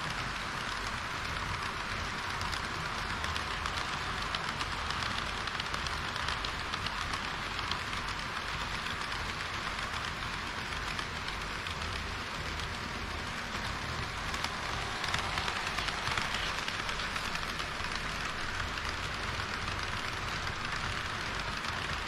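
HO-scale model train, a blue EH200 electric locomotive with a long string of tank cars, rolling along the layout track: a steady rattle of small metal wheels on the rails, with quick fine clicks as the wheels pass rail joints and points.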